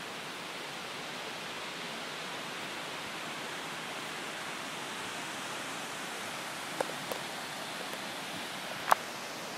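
Steady rushing of a river tumbling over rocks below, heard as an even hiss, with a few sharp clicks near the end, the loudest shortly before the end.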